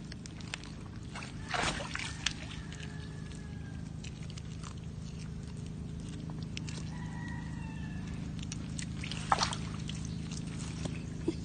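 Water sloshing, with scattered sharp clicks and knocks over a steady low hum.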